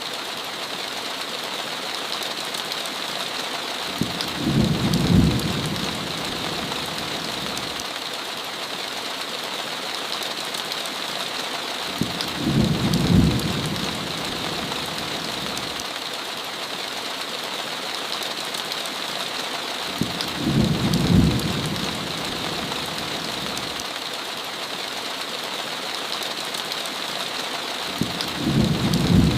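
Steady heavy rain hissing against a window, with four short low rumbles of thunder coming evenly about every eight seconds.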